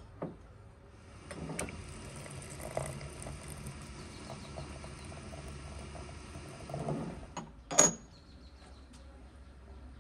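Hot water running from a samovar's tap into a ceramic teapot, a steady pouring stream for about six seconds. It stops, and a sharp clink of china or metal follows near the end.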